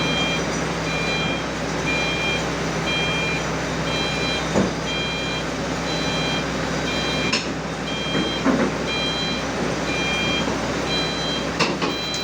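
Heavy machine's travel alarm beeping about once a second, each beep a high multi-tone chord, over the steady running of the XCMG XR160E rotary drilling rig's diesel engine as it is moved for loading. A couple of short knocks sound about halfway through and near the end.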